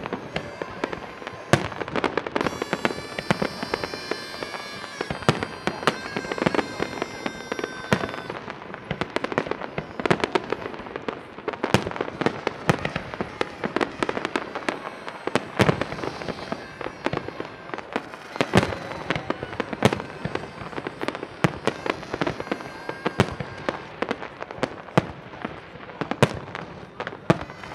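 Fireworks display: aerial shells bursting in a dense, irregular run of sharp bangs, several a second, without a break.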